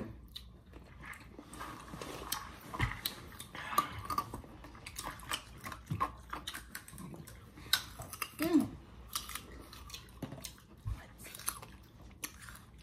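Several people biting into and chewing hard, raw green crab apples, making irregular crunches.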